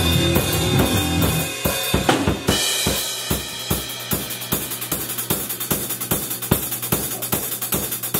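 Heavy metal drum kit played hard: bass drum, snare and crash cymbals. Other instruments play along for about the first two seconds, then the drums carry on alone with a steady, fast beat of kick and cymbal hits.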